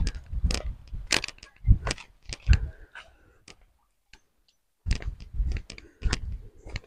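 Footsteps of someone walking on a hill path, with knocks from a handheld camera: irregular short thumps and clicks about twice a second, pausing briefly midway.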